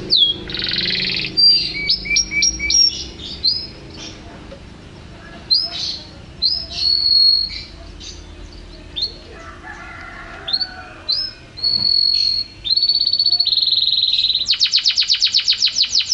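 Canary singing: a varied string of short whistled notes, sweeps and brief held tones, ending in a fast trill of rapidly repeated notes near the end.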